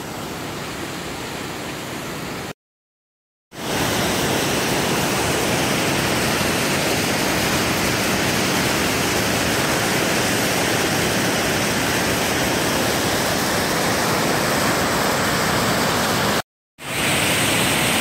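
Waterfall rushing for the first couple of seconds. After a short break, a louder, steady rush of water pouring over the full width of Hoover Dam's concrete spillway, broken again by a brief gap near the end before the churning water below the dam.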